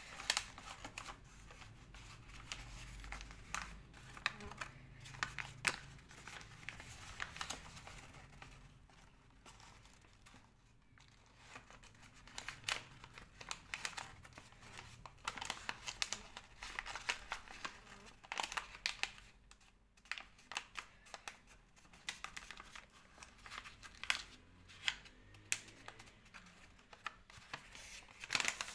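A sheet of paper rustling and crinkling as it is folded and its creases pressed down by hand, in many short, irregular, sharp crackles.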